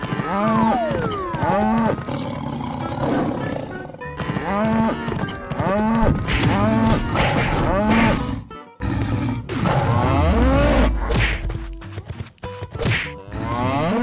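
Cattle mooing calls standing in for cartoon water buffaloes, several short arched moos in quick runs. In the second half a few sharp knocks of hits come in among the calls.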